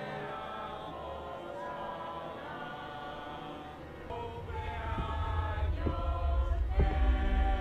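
Film score music with held, choir-like voices. About four seconds in, a low rumble comes in under it and the music swells, growing steadily louder.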